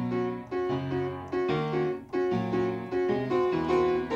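Upright piano playing a steady rhythm of repeated chords over changing bass notes.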